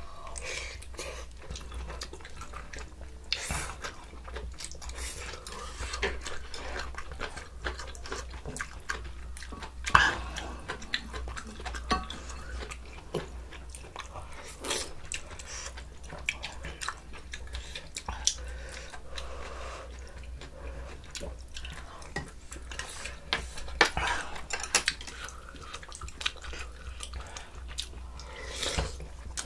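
People eating soup and side dishes: chewing, with scattered short clicks of utensils against bowls, over a steady low hum.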